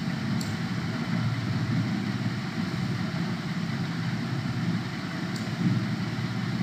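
Steady low hum with hiss, continuous background noise under the recording, with a couple of faint clicks.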